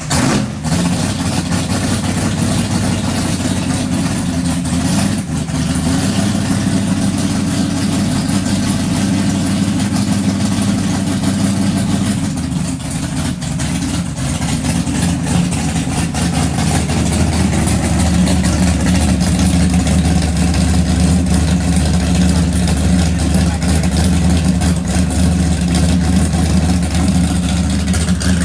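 Chrysler 426 Hemi V8 on an engine run stand, running at a loud, lumpy idle just after a cold start, its twin four-barrel carburetors worked by hand. The idle shifts a couple of times and runs faster and louder in the last third.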